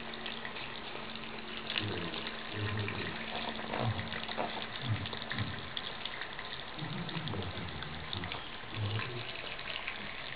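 Tap water running steadily into a sink in a thin stream that a cat is lapping from. Low muffled sounds come and go underneath.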